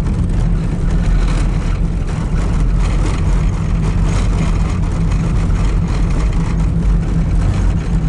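Steady engine and tyre noise from inside a car driving along a snow-covered road, a low, even drone.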